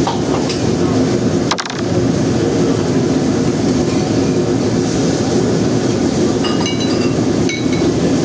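Steady low roar of a commercial kitchen: extraction hood fans and stove burners running, with a few light metallic clinks of utensils or dishes near the end.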